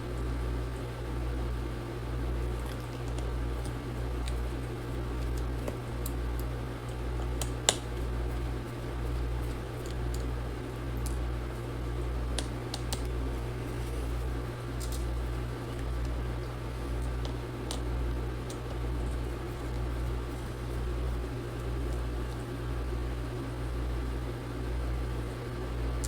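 A steady low hum that swells and fades a little more than once a second, with a few faint light clicks from small tools working on a laptop. One sharper click comes about eight seconds in.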